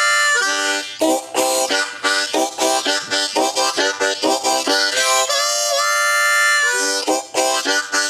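Harmonica playing a train imitation. A long held two-note whistle on holes 4 and 5 dips in pitch in a wah-wah bend, alternating with stretches of rhythmic chugging chords, blown and drawn on holes 1 to 3, which cupped hands muffle and open. The whistle comes twice, and the chugging starts again near the end.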